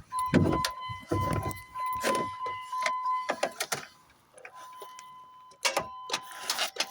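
Keys jangling and clicking at the ignition of a 2000 Dodge Dakota, over a steady high electronic warning tone from the dash that stops about three seconds in and comes back near the five-second mark, with a few dull thumps.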